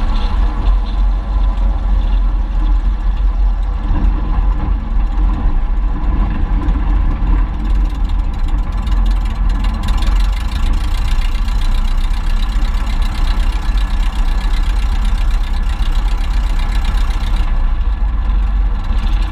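Luscombe 8A's small Continental A-65 aircraft engine idling steadily, its propeller turning slowly, during the landing rollout and taxi.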